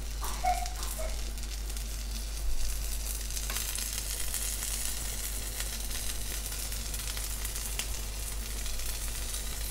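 Crepe topped with egg, chorizo and cheese sizzling steadily in a non-stick frying pan, with small crackles and pops, over a steady low hum.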